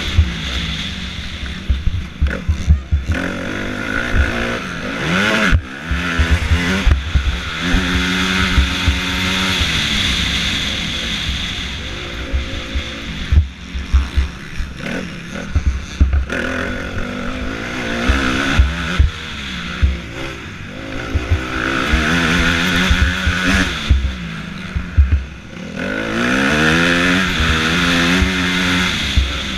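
Motocross bike engine revving up hard and falling off again, over and over, as it is ridden through gears and corners, heard from an on-board action camera with constant buffeting and knocks on the microphone.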